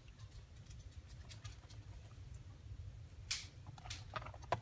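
Faint rustling and scattered light ticks of a cat and a field mouse scrabbling among shoes and clothes in a closet, with one brief, sharper rustle about three seconds in.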